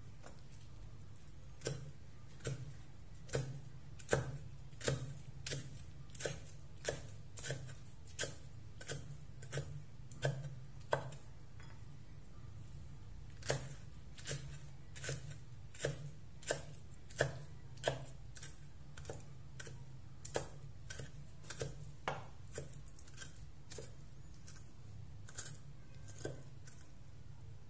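Steel cleaver chopping on a round wooden chopping board: a run of sharp knocks, about one every 0.7 seconds, fainter in the last third. A steady low hum sits underneath.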